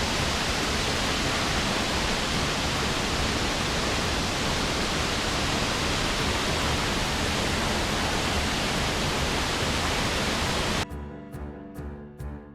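Waterfall pouring steadily, a loud even rush of falling water. About eleven seconds in it cuts off abruptly and music takes over.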